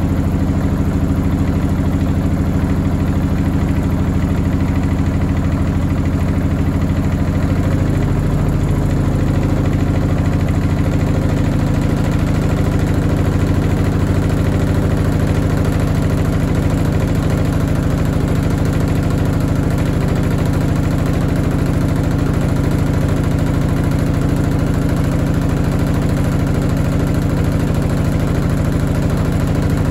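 Washing machine running: a loud, steady mechanical hum from the motor and drum, its tone shifting about eight seconds in.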